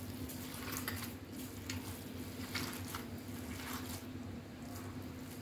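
Raw chicken mince and spices being squeezed and kneaded by hand in a glass bowl: irregular short squishing strokes. A faint steady low hum lies underneath.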